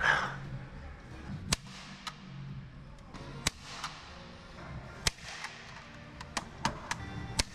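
Hand staple gun firing staples into a wooden door jamb to fasten a wire, several sharp snaps a second or two apart.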